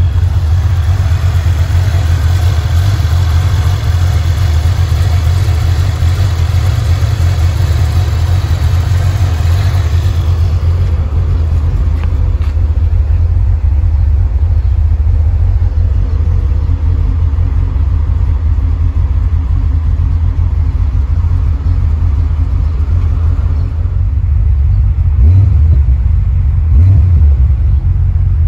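Fox-body Mustang's 5.0 (302) V8 with an aftermarket cam and full exhaust, idling steadily. The brighter upper sound falls away about ten seconds in, leaving the low engine note, and it swells briefly twice near the end.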